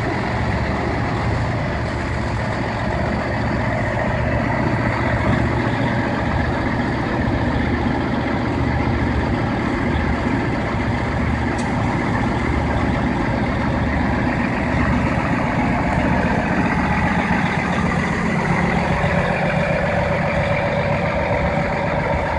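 Semi-truck diesel engine idling with a steady low pulsing rumble; its tone grows fuller about three-quarters of the way through.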